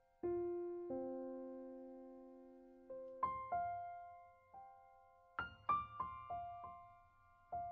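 Background piano music: a slow melody of single struck notes, each left to ring and fade before the next.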